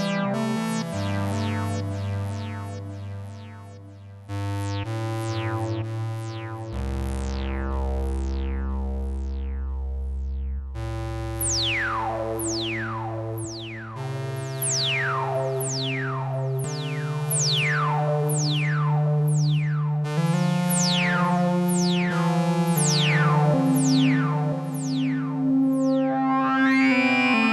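Behringer TD-3-MO acid bass synth played from a keyboard: held bass notes change pitch every few seconds under a run of repeating resonant filter sweeps, each falling quickly from bright to dull, about two a second.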